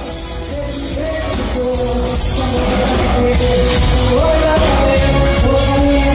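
A band playing with a sung melody over drums and bass, getting louder through the first half.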